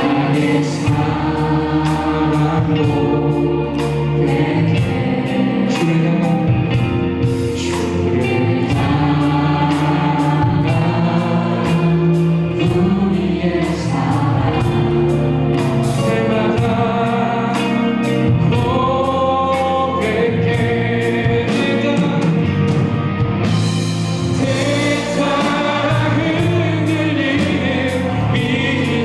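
Live worship band playing a Korean worship song, with several voices singing together over piano, keys, electric guitar, bass and a steady drum beat. Near the end the band grows fuller and brighter.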